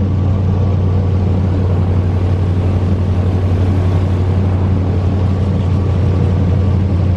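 Airboat's engine and air propeller running steadily, a loud, even low drone.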